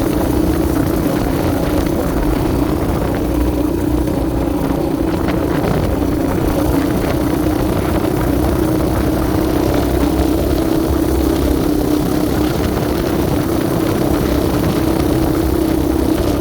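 Yamaha Raptor 700R sport quad's single-cylinder four-stroke engine running at a steady pitch, without revving.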